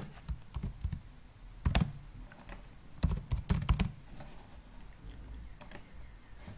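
Computer keyboard being typed on, in two quick runs of keystrokes about two and three to four seconds in, with a few lighter clicks after.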